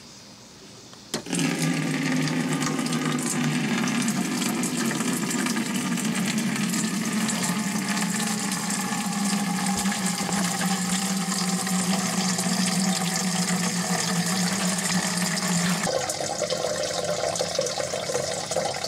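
Old engine coolant draining from the car's cooling system in a steady stream, splashing into a clear plastic jar. The flow starts suddenly about a second in, and its tone changes near the end.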